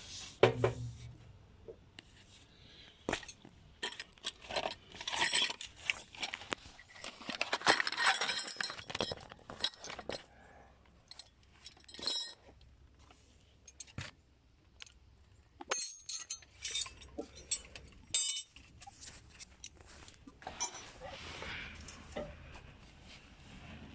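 Small metal parts clinking and rattling, in irregular clicks with a few jingling bunches: exhaust clamp hardware (U-bolt, nuts, washers) being handled while fitting a muffler clamp.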